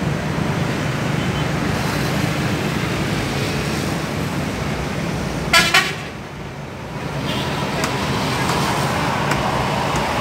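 Two short toots of a horn about halfway through, over a steady engine rumble.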